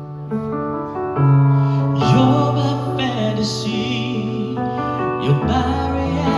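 Slow, soft music: a female voice singing with vibrato over piano or keyboard chords.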